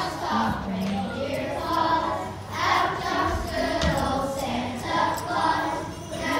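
A class of young children singing a song together.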